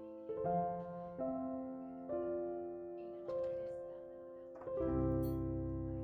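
Background piano music: soft chords struck about once a second, with a fuller, deeper chord coming in near the end.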